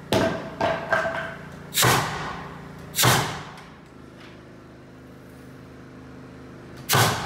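Pneumatic nail gun firing nails through wooden ceiling strapping: six sharp shots, three close together in the first second, one at about two seconds, one at three, and one near the end, each echoing in a large, empty room.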